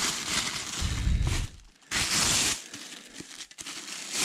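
Thin plastic bag crinkling and rustling as it is pulled off a motorcycle helmet, with the loudest rustle about two seconds in, then quieter crinkles.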